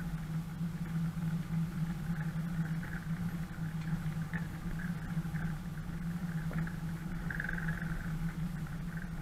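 An off-road 4x4 driving slowly along a dirt track: a steady engine drone with tyre and body noise, and faint higher creaks here and there.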